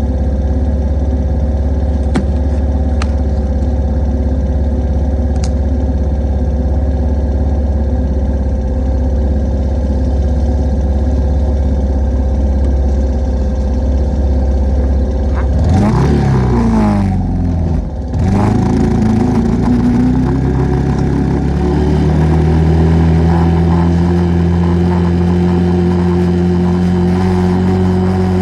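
ATV engine running under way. About halfway through, the engine note sweeps down and back up with a brief dip, then holds a steadier, higher note.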